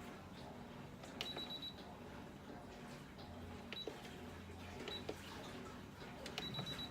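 Computerized sewing machine beeping: several sharp clicks, each followed by a short high beep, two of them held for about half a second. The beeps come as the machine shows an E4 error code.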